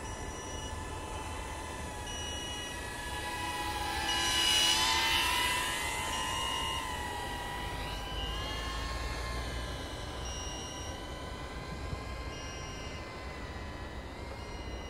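Small FPV quadcopter's brushless motors (DYS 1306 4000KV) spinning three-blade 3-inch props: a steady multi-pitched whine that bends up and down with throttle and swells to its loudest about four to five seconds in.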